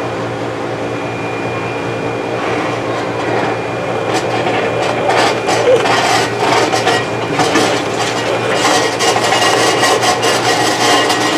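Microwave oven running with a steady hum, joined from a few seconds in by irregular crackling and rasping that grows louder and denser.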